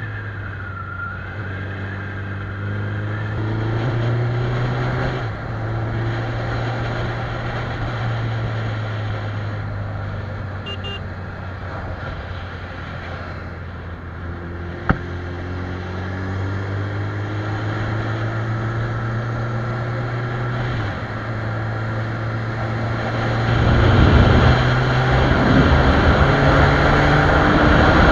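Suzuki Hayabusa's inline-four engine pulling under way, its pitch climbing slowly with sudden drops at gear changes about five seconds in and again about twenty-one seconds in. There is one sharp click about halfway, and wind rush on the microphone grows loud over the last few seconds as speed rises.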